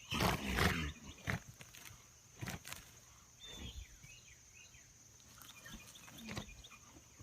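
A horse coughing: one loud, harsh cough about a second long at the start, then a few shorter, quieter bursts spread through the rest.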